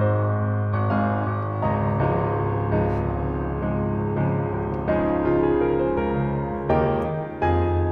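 Background piano music, with new chords or notes struck about once a second.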